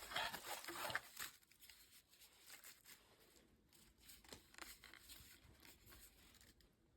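Near silence with faint rustling and light handling clicks, loudest in the first second or so.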